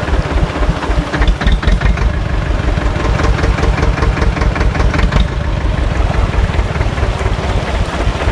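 Same tractor's diesel engine running steadily with a fast, even putter as the tractor works its way through a shallow, stony river.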